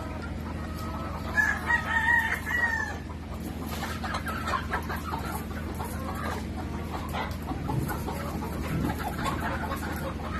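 Crated Dekalb Brown laying hens clucking and squawking, with one long, loud squawk about a second and a half in. After that come scattered shorter calls and rattling of the wire crates as they are handled, over a steady low hum.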